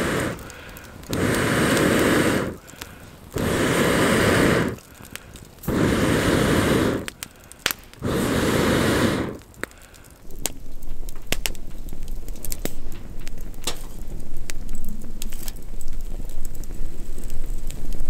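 Long breaths blown through a metal fire-blowing pipe into a wood fire, four steady puffs about two seconds apart that fan the flames. After them the firewood crackles and pops steadily as it catches.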